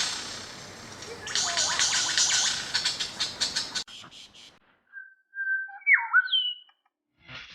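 A harsh, scratchy noise for the first four seconds, then a bird whistling a few clear notes: one held, one that swoops up and then down, and a higher falling one near the end.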